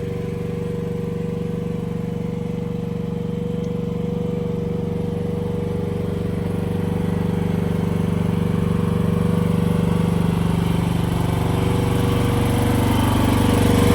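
AGT QK16-R mini excavator's small engine running at a steady idle, growing somewhat louder near the end.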